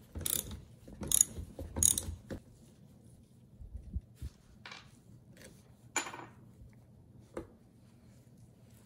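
Socket ratchet clicking in short bursts as the clutch-drum nut on a Homelite Super 2 chainsaw's crankshaft is loosened against an engine locked with rope in the cylinder. After that come a few scattered metal clicks and one ringing clink about six seconds in, as the nut is spun off by hand and the sprocket drum is slid off the shaft.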